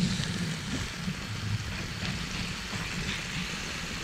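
Meat frying in its juices in a small camping pot on a portable gas canister stove: a steady sizzling hiss over a low rumble.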